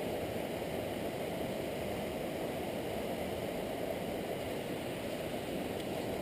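Steady, even rush of river water flowing over rocky riffles.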